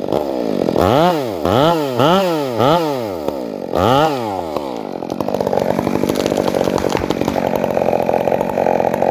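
Stihl two-stroke chainsaw revved up and down in about five quick throttle blips, then settling into a steady, lower-pitched run about five seconds in.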